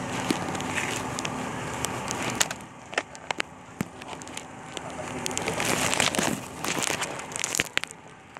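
Outdoor street ambience by roadside food stalls: a steady hiss and low hum with scattered clicks and clatter, swelling louder about six seconds in.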